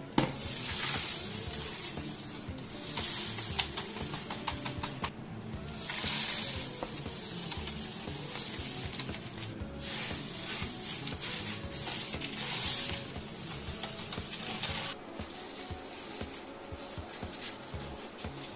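Dry dehydrated onion flakes rustling and crackling as they are tipped and swept by hand out of a dehydrator tray into a container, in several surges. Background music plays underneath.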